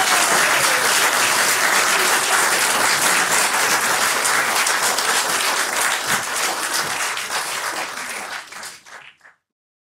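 Audience applauding, a dense patter of many hands clapping that thins out over the last few seconds and stops about nine seconds in.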